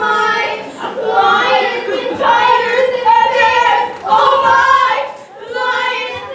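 Young performers singing together, with held, wavering notes and short breaks between phrases.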